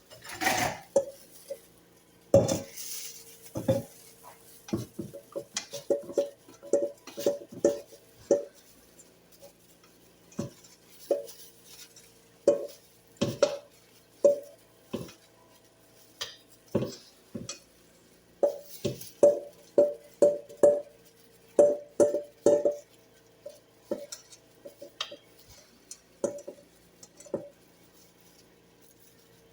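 A utensil knocking and scraping against a mixing bowl, dozens of short irregular clinks, some in quick runs, as the thick ketchup-and-brown-sugar sauce is scraped out over chicken in a slow cooker.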